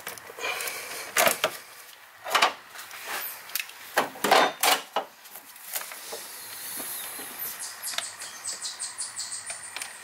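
Hand tools and metal parts clinking and knocking at the cam gears and VVT hub of a Volvo five-cylinder engine during VVT hub removal, a string of separate sharp knocks, then a quick run of light clicks near the end.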